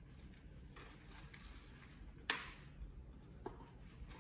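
Quiet handling noise of hands working a wig on a mannequin head: faint rustling of the hair and lace, with one sharp click or tap a little over two seconds in and a smaller one about a second later.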